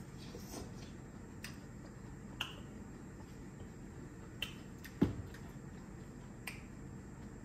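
A few light, sharp clicks and taps from a metal fork and mouth sounds while food is tasted and chewed, over a steady low hum, with one duller, heavier thump about five seconds in.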